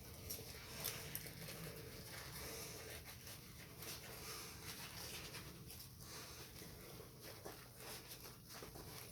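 Faint rustling of clothing with scattered soft clicks as an elastic-backed waist cincher is fastened and adjusted.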